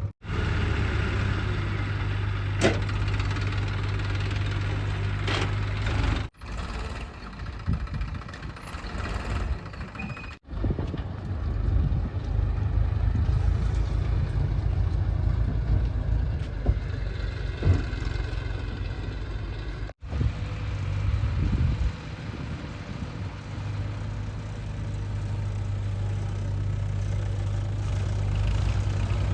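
Diesel engines of a backhoe loader and farm tractors running steadily at work, with a few sharp knocks. The sound cuts off and resumes abruptly four times.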